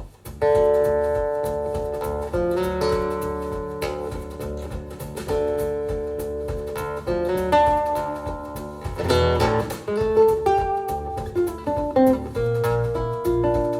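Instrumental music with plucked guitar, played back over Focal Grande Utopia EM floor-standing loudspeakers driven by a Western Electric 97A tube amplifier. The playing comes in loudly about half a second in, with a strummed chord midway and deeper bass notes toward the end.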